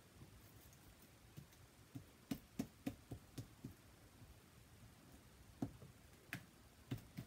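Faint clicks and smacks of sticky slime being stretched and pressed by hand against a tabletop, a quick run of them about two seconds in and a few more near the end.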